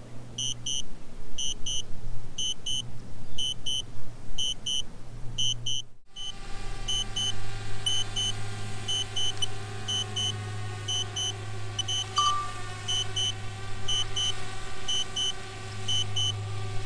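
Return-to-home alert from the DJI Spark's controller app: quick double beeps repeating about twice a second, over a steady low hum. The sound cuts out briefly about six seconds in and resumes with the same beeping.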